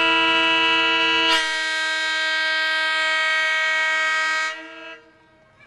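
Air horn of the Nebraska Zephyr's stainless-steel diesel passenger locomotive sounding one long chord of about five seconds, its tone shifting about a second and a half in, then cutting off.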